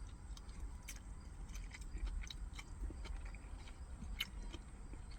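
A person chewing a bite of hibachi, with faint, irregular mouth clicks throughout over a low steady hum.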